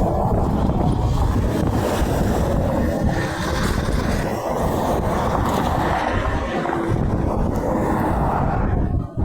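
Interstate highway traffic rushing past, a steady heavy rumble of truck engines and tyres, with wind buffeting the microphone.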